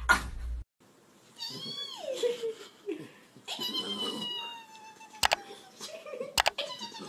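A dog gives one short bark at the start, then after a break a pug makes several long, wavering, howling whines that fall in pitch. A few sharp clicks come near the end.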